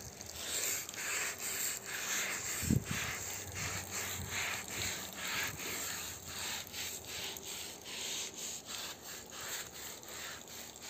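Hand scrub brush scrubbing a wet carpet in quick back-and-forth strokes, about two or three a second, with one dull knock about three seconds in.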